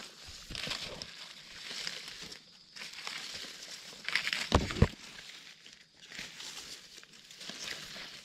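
Irregular crinkling and rustling of forest-floor debris being disturbed, with a louder crunch about four and a half seconds in.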